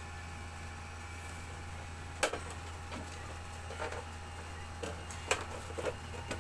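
Scattered clicks and short scraping squeaks as the casing of a portable power station is worked open with hand tools, one sharp click about two seconds in and several lighter ones later, over a steady low hum.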